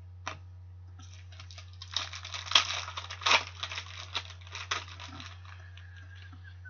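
Hockey trading cards being handled by hand: a single click, then a few seconds of rapid rustling and clicking as the cards are slid and flipped against one another, over a steady low hum.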